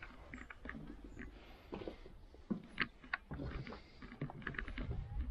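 Footsteps and scattered light knocks and creaks from someone walking through the debris-strewn interior of an abandoned railway carriage, with a cluster of sharper knocks about halfway through.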